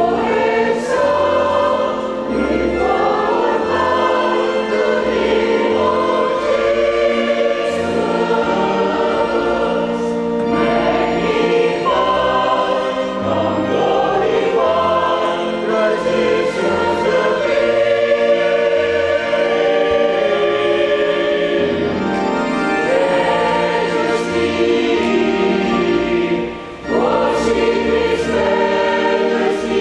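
A mixed church choir of men and women sings in parts with organ accompaniment, on long held notes over a low sustained bass. The singing breaks off briefly about 27 seconds in.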